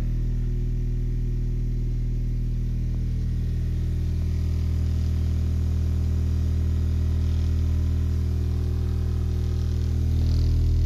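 12-inch Aura Indigo subwoofer, driven by an Aura Fireball D1-600 mono-block amplifier, playing a steady 40 Hz test tone: a deep, continuous hum with overtones, getting a little louder near the end. It is loud enough to make the ears feel blocked.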